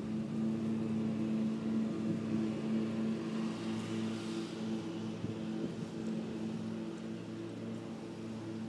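A steady motor hum of even, unchanging pitch.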